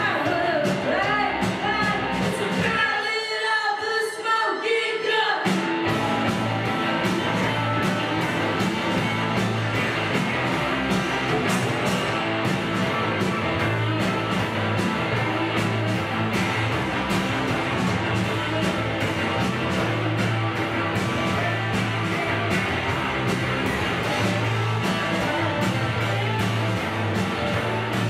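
A rock band playing live, with electric guitars, drums, bass and singing. About three seconds in the bass and drums drop out for a couple of seconds, leaving only the higher parts, then the full band comes back in with a steady beat.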